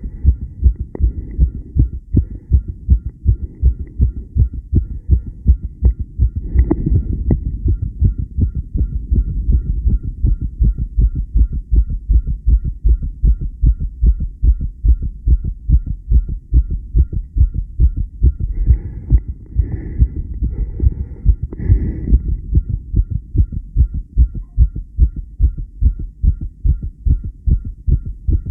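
Human heart beating fast and evenly: a steady tachycardia, low thudding beats repeating at a quick, regular pace. Brief scratchy noises break in about seven seconds in and again around twenty seconds in.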